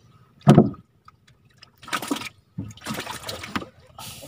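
Water splashing and trickling in several short bursts, with a louder thump about half a second in.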